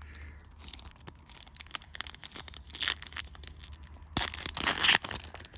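Foil trading-card booster pack wrapper crinkling and being torn open, with the loudest rips about three seconds in and again between four and five seconds.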